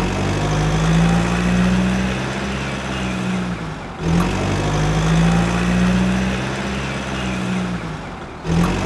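Looped vehicle engine sound effect, a steady low engine hum that restarts twice, about four seconds in and near the end, each time with a short click.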